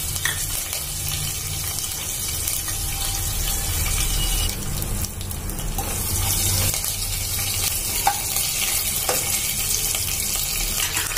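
Curry leaves, chopped garlic and whole spices sizzling in hot oil in a pressure cooker as a tadka (tempering), stirred with a spoon. The sizzle is steady, with a couple of faint spoon clicks near the end.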